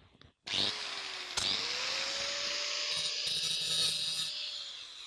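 Electric handheld power tool running against the base of a metal post: its motor starts about half a second in, climbs in pitch after a click, runs steadily with a hiss, then winds down with a falling pitch near the end.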